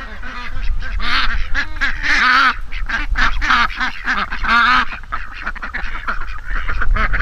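A flock of domestic ducks quacking: a quick run of short, loud calls, one after another and overlapping.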